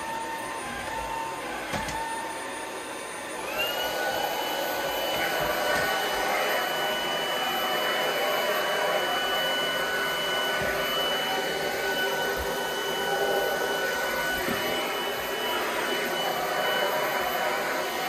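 TROUVER Power 11 cordless stick vacuum running, with the steady whine of its high-speed brushless motor over the rush of sucked air. About three and a half seconds in, the whine glides up to a higher pitch and then holds steady. A few light knocks come at the start.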